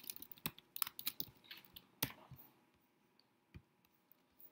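Typing on a computer keyboard: a quick run of key clicks that stops about halfway through, followed by one soft knock and a couple of faint clicks near the end.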